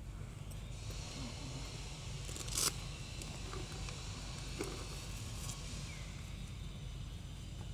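Outdoor ambience: a steady low rumble under a faint high hiss, with a sharp click about two and a half seconds in and a softer one a couple of seconds later.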